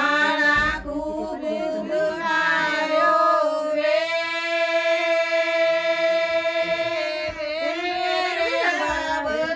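Women singing a Punjabi suhag wedding folk song unaccompanied, drawing out one long held note through the middle.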